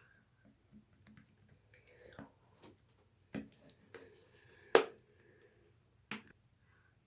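Jelly slime being squished and poked by hand: scattered small wet clicks and a few sharp pops, the loudest just under five seconds in.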